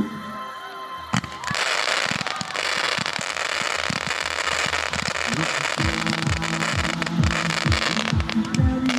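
Fireworks going off in a dense, steady crackling hiss that begins about a second and a half in. From about the middle, a pulsing low beat from the show's soundtrack plays under it.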